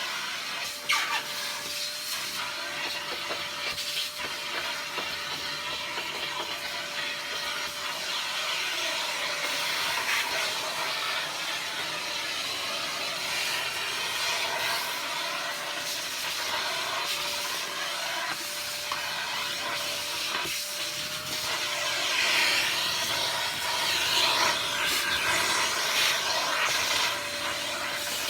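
Vacuum cleaner running as it is worked over the floor: a steady rushing hiss with a faint steady whine, growing louder for a few seconds near the end.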